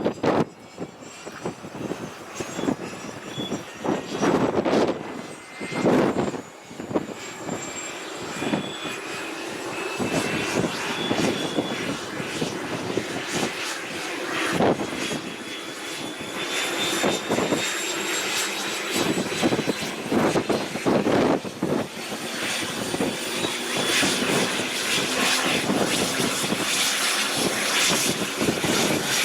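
Sikorsky S-76 helicopter's twin turboshaft engines spooling up for start, a high turbine whine rising slowly and steadily in pitch. Gusts of wind buffet the microphone, mostly in the first half.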